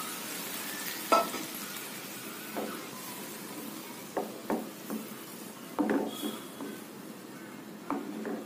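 Creamy curd marinade sizzling in a frying pan of butter and whole spices as a spatula stirs it. The spatula scrapes and knocks against the pan every second or two.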